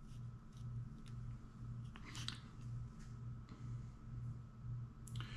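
Faint rustling and small clicks of hands handling copper foil tape and scissors on a workbench, a little louder about two seconds in, over a low pulsing hum.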